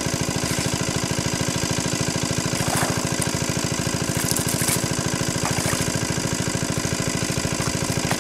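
Small engine running steadily at an even, rapid thudding beat.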